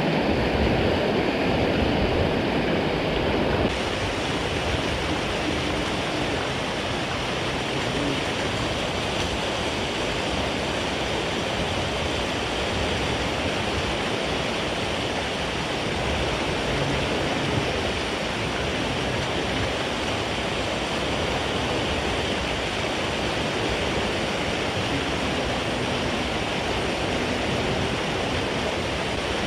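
Steady rush of wind and choppy water, with a small change in tone about four seconds in.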